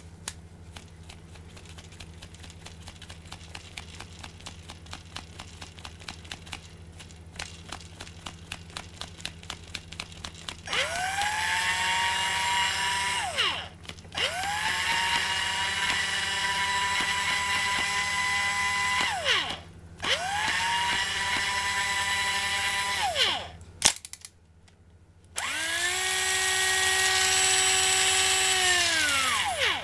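Shimano Dendou-maru 3000XH electric fishing reel: first a run of rapid ticks that come faster and faster as the spool turns. Then its motor winds in four runs, each a whine that rises as it spins up, holds steady, and falls away as it stops.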